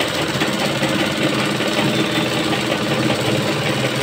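Sewing machine running steadily at speed, its needle stitching a seam through cotton fabric.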